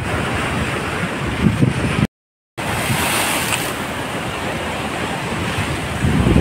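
Churning river water rushing below a dam's open spillway gates: a steady loud rush of water, with wind buffeting the microphone in gusts. The sound cuts out for half a second about two seconds in.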